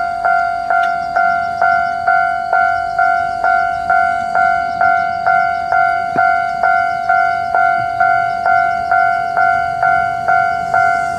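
Japanese level-crossing electronic warning bell ringing its steady repeated ding, about two strikes a second. It is on a crossing left faulty by a lightning strike, where the bell kept sounding.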